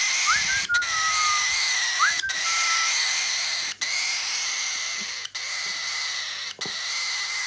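Baby cockatiel chick giving its continuous raspy, wheezing begging hiss, the 'dinosaur' sound of a young cockatiel, broken by brief pauses for breath about every one and a half seconds. Two short falling whistled notes sound in the first three seconds.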